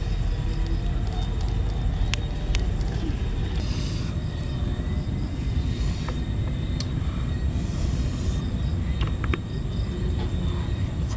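Steady low rumble of wind buffeting the microphone, with a few sharp clicks and two short hissy rushes, about four seconds in and again near eight seconds.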